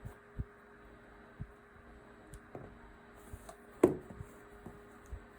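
Soft taps and light knocks from loops being worked over and under on a potholder loom, with one sharper knock a little before four seconds in, over a faint steady hum.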